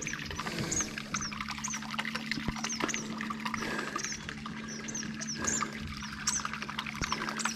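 A small boat motor hums steadily with its propeller set shallow, just touching the water surface, so it churns and splashes the water. A bird chirps over it, short notes about twice a second.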